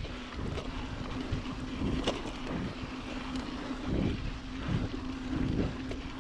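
Mountain bike rolling along a gravel fire road: tyre noise on the loose surface and a few sharp rattles over small bumps, with wind buffeting the microphone and a steady hum underneath.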